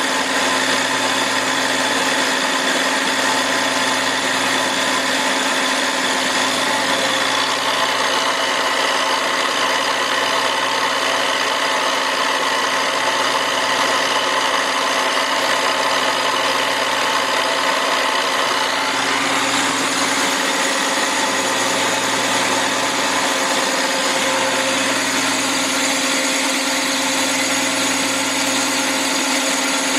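SIP Hydroptic 8 jig borer running, its boring bar cutting an oversize bore in a cast-iron AMC/Jeep 258 engine block cylinder. A steady machine hum with several high steady whining tones, whose pitch pattern shifts slightly about 7 and 19 seconds in.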